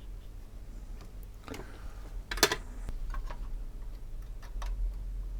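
Small taps and clicks of hand tools working on a circuit board while capacitors are soldered in. There is a sharp louder click about two and a half seconds in and another at the end, over a low steady hum.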